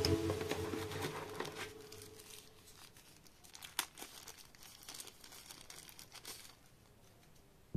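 Faint crinkling and rustling of thin white paper wrapping being pulled open by hand, with a few small sharp crackles; it stops about a second before the end.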